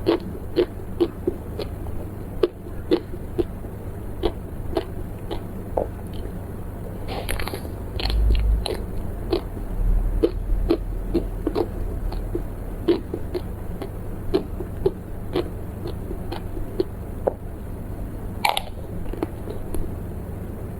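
Close-miked mouth chewing and biting on snack food, with crisp wet clicks about twice a second. A louder crunch comes about seven seconds in and another sharp one near the end.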